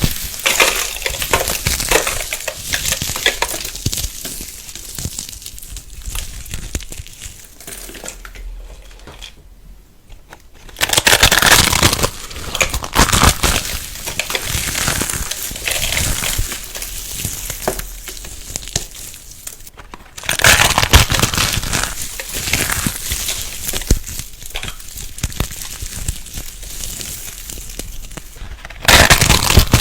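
Close-up cutting and crushing of a crisp, crumbly material such as soap or crunchy slime, heard as dense crackly clicks. The sound changes abruptly about a third of the way in, about two thirds of the way in, and near the end, as one clip gives way to the next.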